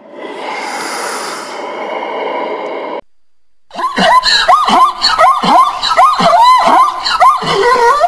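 A steady noisy hiss for about three seconds, then after a short gap a plains zebra barking: a loud run of rapid yelping calls, each rising and falling in pitch, with short breathy sounds between them.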